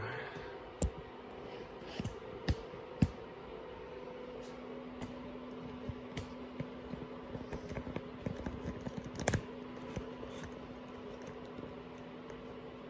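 Scattered light clicks and taps of clutch cables being handled and straightened by hand, with sharper knocks about three seconds in and again near nine seconds. A faint steady hum runs underneath.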